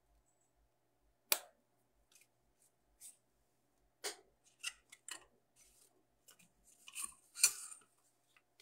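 Hands handling craft-foam and acetate pieces on a work surface: scattered short rustles, taps and crinkles, with a sharp snap about 1.3 s in and a louder crinkling rustle near the end.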